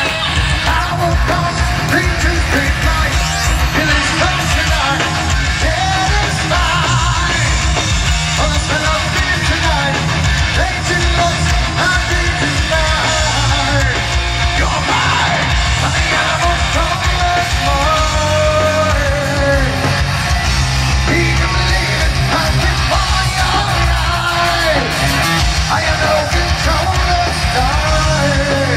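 Heavy metal band playing live, with electric guitars, drums and a singer's yelled, sung vocals, heard from out in the audience.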